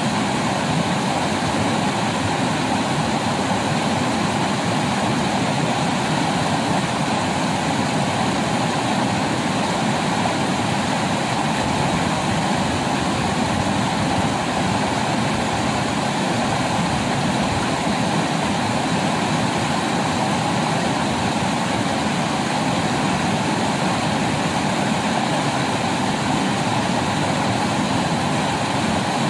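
River rapids rushing steadily over boulders, a continuous even roar of white water.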